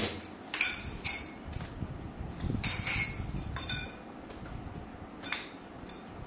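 Thin cheap iron rods of a bookshelf frame clinking and knocking against each other and the plastic connectors as they are handled and fitted: about six sharp clinks spread through, with handling noise in between.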